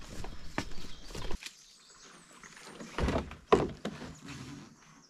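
Footsteps on a forest trail for about a second and a half. After a short quieter stretch, a few knocks and heavy thumps come about three seconds in, the loudest a sharp hit half a second later, as a canoe is swung down off a carrier's shoulders. Faint birds chirp.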